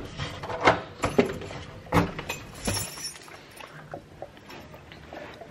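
A few sharp clicks and knocks, irregularly spaced over the first three seconds, then only faint background noise.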